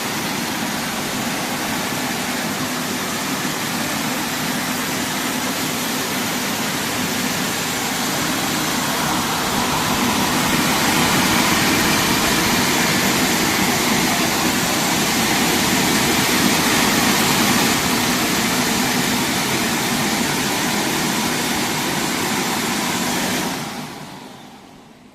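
Automatic car wash machine running, a steady rush of motor and water-spray noise that grows a little louder midway and dies away near the end.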